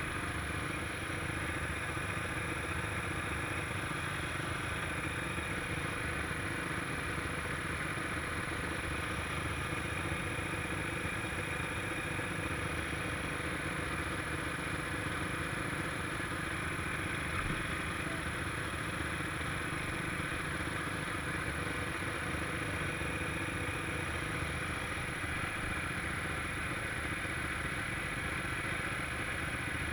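Quad bike engine idling steadily.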